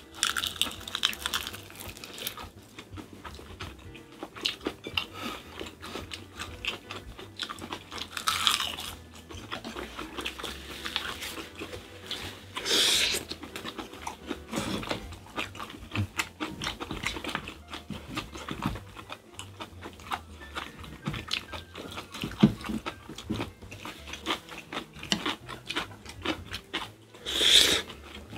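Close-up eating sounds of spicy stir-fried squid on rice wrapped in seaweed: chewing and crunching mouthfuls, with many small clicks of chopsticks and spoons against glass bowls. Three louder noisy bursts stand out: the first a third of the way in, the second near the middle, the third near the end.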